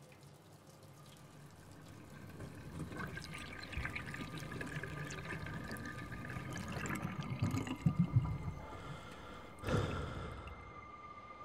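Water running from a tap into a stainless steel sink, pouring and trickling. It builds up over the first few seconds, with a short louder rush near the end.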